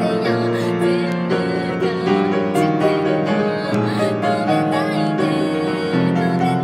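Grand piano played with both hands: full chords under a moving melody, steady and loud.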